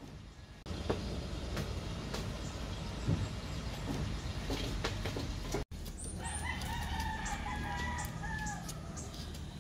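Rooster crowing once, a long drawn-out crow of about two and a half seconds that starts about six seconds in. Before it there are scattered clicks and knocks.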